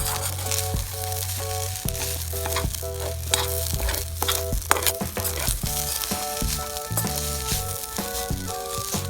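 Fried rice sizzling in a nitrided-iron COCOpan frying pan as it is stir-fried, with a steady hiss and frequent short scraping knocks.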